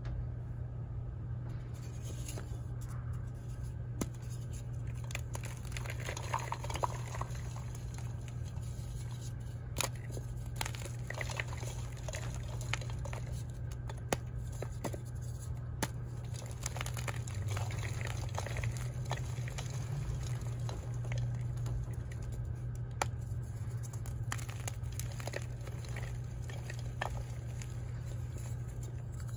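Blocks of dyed chalk being squeezed and crumbled by hand in a bowl, with soft crunching of powder and scattered sharp snaps as pieces break. A steady low hum runs underneath.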